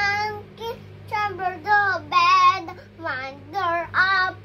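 A young girl singing in short, held phrases with brief pauses between them, over a faint steady low hum.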